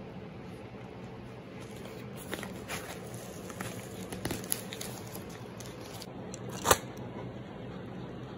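Padded paper mailer crinkling and tearing as it is opened, with scattered crackles and one sharp click about two-thirds of the way through, over a steady low hum.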